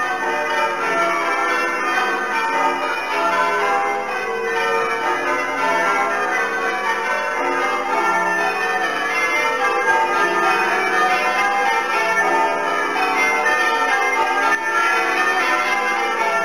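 A ring of church tower bells being rung in changes, English full-circle change ringing, with one bell following another in a continuous stream of strokes.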